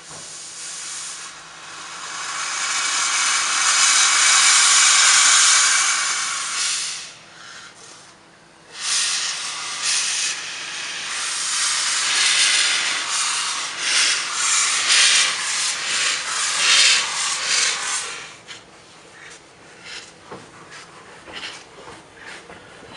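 Narrow-gauge steam tank locomotive letting off a long, loud hiss of steam, then pulling away with its cylinder drain cocks open in a quick run of hissing steam beats. The beats fade out about eighteen seconds in.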